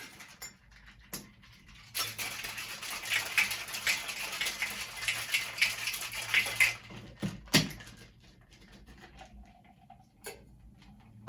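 Ice rattling hard inside a cocktail shaker as a margarita is shaken for about five seconds, pulsing about twice a second, followed by two sharp knocks.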